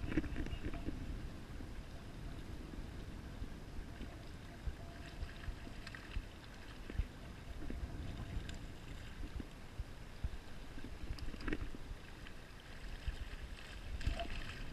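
Wind buffeting the microphone, with a steady low rumble over the wash of shallow river current around the wading angler. A few faint clicks sound now and then.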